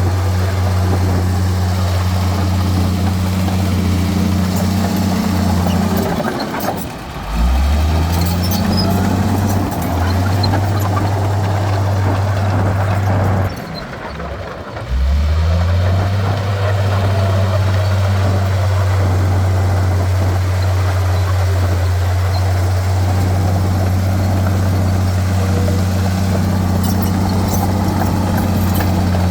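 Heavy diesel earthmoving machinery working with a steady low engine drone. The engine drops off twice, about seven seconds in and again about fourteen seconds in, and each time revs back up.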